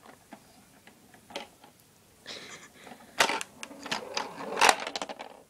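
Clicking and clattering of a Tomy plastic dome toy as its knobs are worked and the pieces inside rattle. The clicks are irregular, with busier runs in the middle and near the end.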